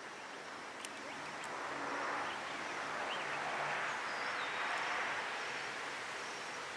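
Outdoor background noise: a broad rushing sound that swells in the middle and then eases, with a faint short chirp about three seconds in.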